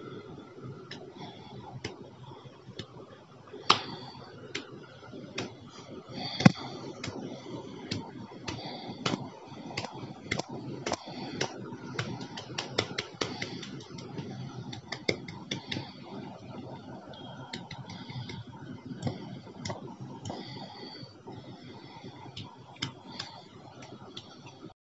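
Bare hands rubbing together and fingers patting on a palm: a run of irregular light slaps and skin taps over a soft rustle. Two sharper slaps stand out, about four seconds in and again a couple of seconds later.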